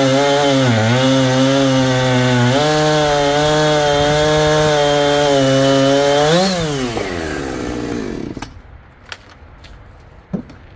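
Husqvarna 460 Rancher's two-stroke engine at full throttle cutting through a 20-inch oak log, dipping in pitch briefly under load about a second in, then holding steady. About six seconds in it revs up as the cut finishes, then winds down to idle and fades, followed by a few light knocks.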